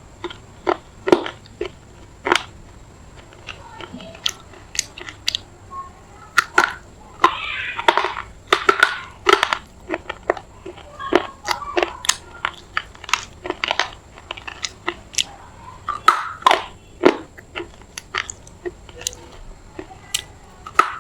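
Close-up chewing and crunching of a piece of semi-wet red clay in the mouth: many sharp, irregular crunches and crackles, thickest about a third of the way in and again near the end. The clay is gritty in places, hard and stone-like to chew.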